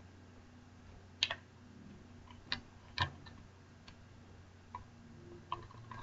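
Scattered light plastic clicks and taps at uneven intervals, the sound of an RC buggy's plastic antenna tube being pushed and worked into its mount.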